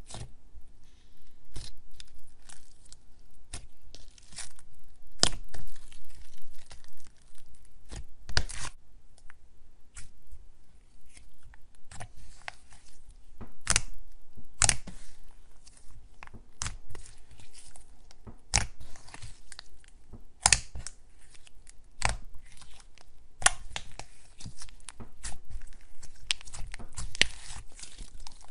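Hands poking, pressing and folding a thick, soft slime, making many irregular sharp pops and crackles as pockets of air in it burst.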